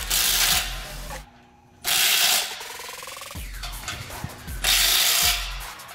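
Cordless impact driver running bolts down on the bolt ring of a mega truck wheel rim, in three short bursts of hammering about half a second each.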